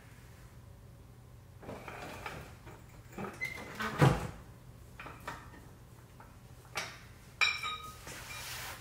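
Hand tools and loose metal parts being handled during engine teardown: a string of scattered knocks and metallic clinks, the loudest about four seconds in, and one near the end that rings briefly.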